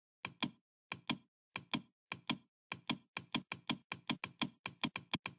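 Computer mouse buttons clicking repeatedly. The clicks come in pairs at first, then in a quicker run of about five a second.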